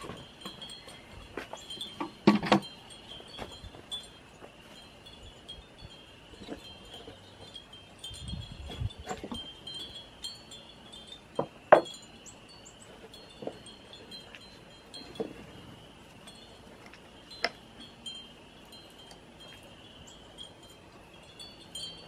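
Hanging leaf-shaped wind chimes tinkling steadily in the breeze. A few sharp knocks break in, the loudest about 2 and 11.5 seconds in, with a low thud near 9 seconds.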